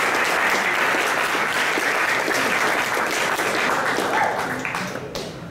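Audience applauding, the clapping tailing off near the end.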